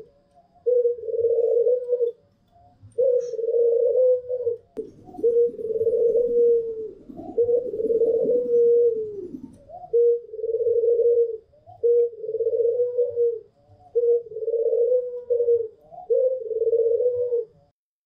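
White puter, domestic ringneck doves, cooing over and over: rolling coos of a second or more each, about eight in all, roughly two seconds apart. In the middle, a longer, deeper coo runs for several seconds.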